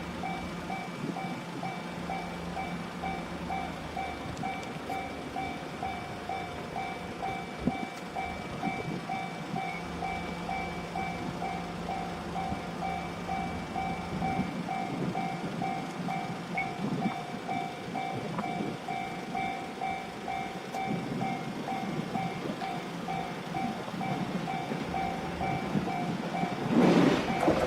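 Railway level crossing warning bell ringing in a steady, rapidly repeating pattern. Near the end a train arrives and the rumble and clatter of its wheels on the rails grow loud.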